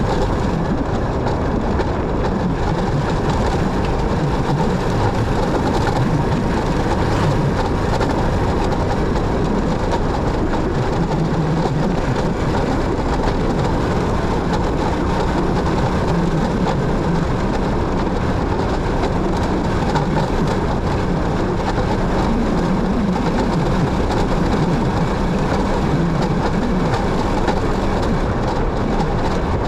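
Motorcycle on the move: steady engine and road noise with a low rumble, unchanging in level throughout.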